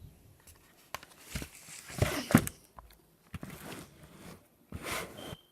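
Clear-glue slime being squished and stretched by hand for ASMR: sticky, wet squishes with small clicks and pops, coming in several bunches, the loudest about two seconds in.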